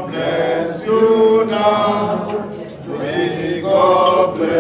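A group of voices singing together in unison, in sung phrases, with a few hand claps.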